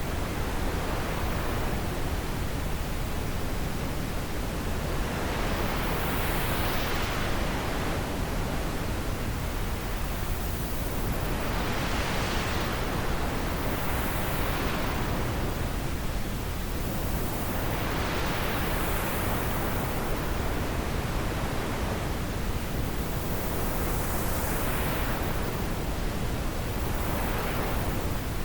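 Wind blowing steadily, a rushing noise that swells and eases every few seconds like gusts.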